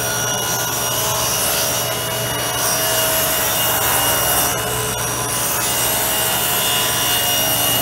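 Table saw ripping a long wooden strip plank at a slight bevel, the blade cutting steadily, with a shop vacuum and a phase converter running.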